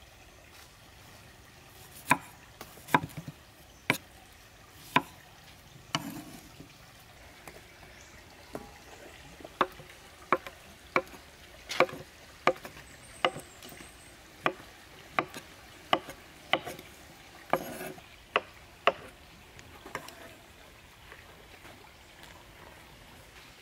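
Cleaver chopping on a thick wooden chopping board while slicing peeled bananas: a few scattered knocks at first, then a steady run of about one and a half chops a second, thinning out near the end.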